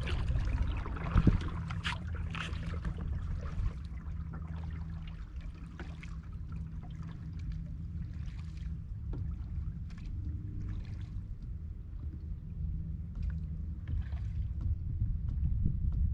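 Kayak being paddled: the paddle blades dip and splash water every couple of seconds, over a steady low rumble.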